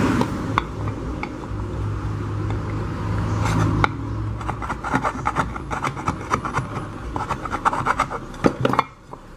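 Hand-filing or scraping on metal in quick, irregular rubbing strokes, the deburring of a freshly drilled valve hole in a pressure-cooker lid. A low steady hum runs under it for the first four seconds and then stops.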